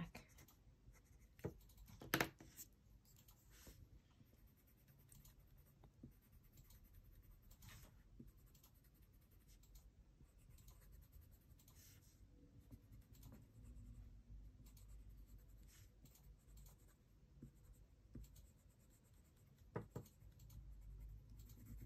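Faint scratching of a black colored pencil shading on drawing paper, with one sharper tick about two seconds in.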